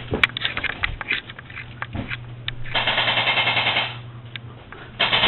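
Electric airsoft gun firing a full-auto burst of about a second, a fast even rattle, about two and a half seconds in. Scattered sharp clicks and knocks come before and after it.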